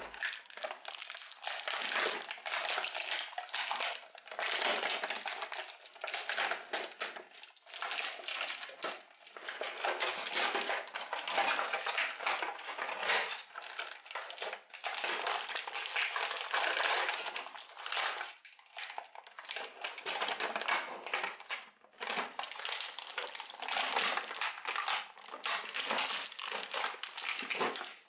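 Thin clear plastic packaging crinkling and crackling as it is handled and pulled away from an action figure, in repeated bouts with short pauses between them.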